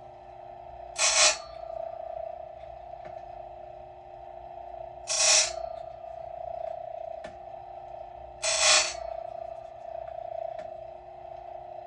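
Silvey raker grinder running with a steady motor whine while its stone grinds down the rakers (depth gauges) of a saw chain: three short, loud grinding rasps about every three and a half seconds, with faint clicks between.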